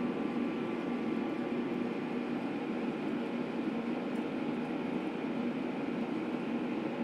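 Steady droning hum with a hiss from equipment running in a blacksmith's shop; no hammer blows.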